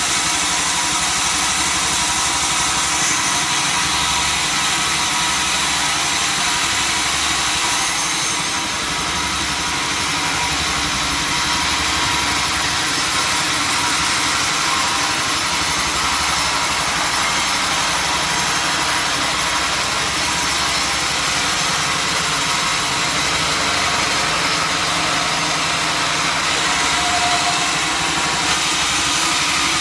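Sawmill machinery running steadily: a continuous engine-like drone with dense hiss, its tone shifting slightly about eight seconds in.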